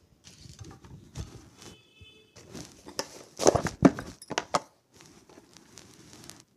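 Kitchen handling noises: soft rustling, then a run of sharp clicks and knocks about three to four and a half seconds in, as salt is fetched for the chicken marinade.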